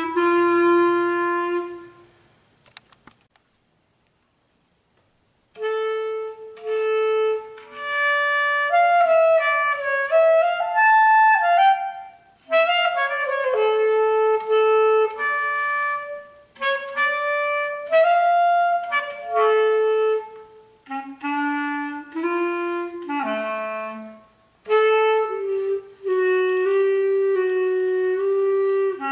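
Solo clarinet, unaccompanied. A held note dies away about two seconds in, and after a pause of about three seconds a melodic passage of quick runs and held notes begins.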